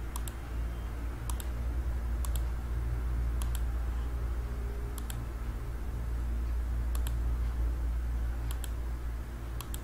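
Computer mouse button clicking about eight times at uneven intervals, each click a quick press-and-release pair, as faces are selected one after another. A steady low hum runs underneath.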